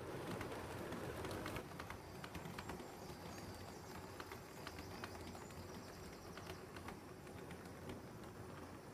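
7mm-scale model train running through the layout, its wheels clicking irregularly over rail joints and pointwork above a low steady hum; the clicks thin out near the end.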